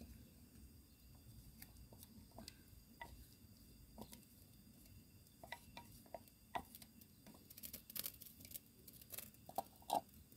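Faint scattered taps and scrapes of a wooden spatula against a glass bowl as wet blended chilli-tomato sambal paste is scraped out into a frying pan, with stirring in the pan near the end. A cluster of sharper taps comes about two-thirds of the way in, and the loudest taps just before the end.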